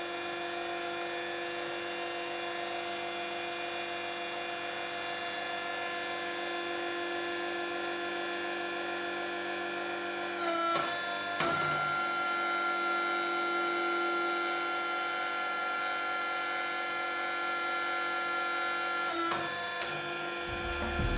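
Hydraulic pump running with a steady motor whine while it drives a homemade welded hydraulic cylinder out and back in. The tone dips and shifts briefly about halfway through and again near the end.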